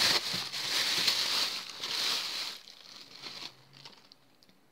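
Thin clear plastic bag crinkling and rustling as it is opened and wafers are taken out of it, loud for about two and a half seconds, then dying down to a faint rustle.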